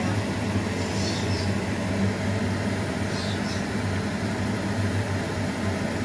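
A steady low mechanical hum over a faint even hiss, unchanging throughout.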